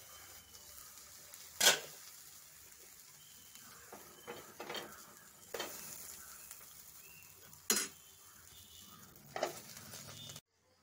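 Dosa batter sizzling in a nonstick frying pan, with several sharp clinks and knocks of the pan's glass lid against the pan as it is lifted off and set back on; the loudest knock comes near the start. The sound cuts off suddenly near the end.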